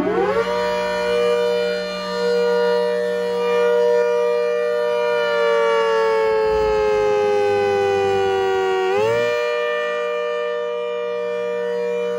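Hurricane 130 siren wailing. Its pitch climbs sharply at the start and holds, sags slowly over a few seconds, then climbs back up about nine seconds in and holds again, over a steady low hum.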